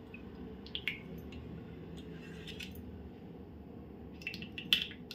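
Steel ladle stirring thick ghavan batter in a steel pot: soft squelching of the batter with a few light clinks of the ladle against the pot, the sharpest shortly before the end.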